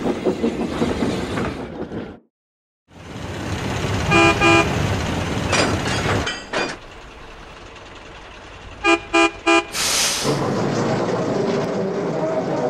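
Train sound effects: a running engine rumble broken by a short silent gap, then two short whistle toots, later three quick toots in a row, followed by a steady rumble with a hiss.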